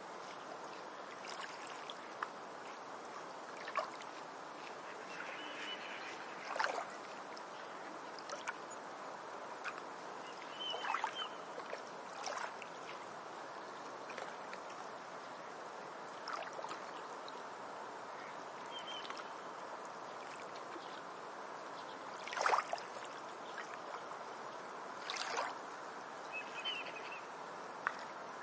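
Lakeside ambience: a steady hiss of moving water, with a few sharp clicks, the loudest about two-thirds of the way through, and four brief high bird chirps.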